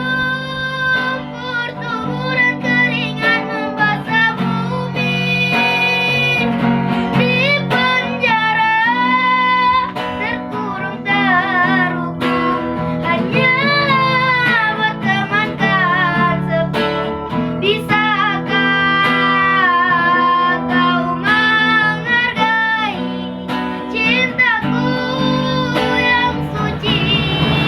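A young girl singing a melody with strong vibrato on held notes, accompanied by guitar.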